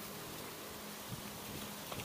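Quiet outdoor ambience: a steady faint hiss with a couple of faint soft ticks.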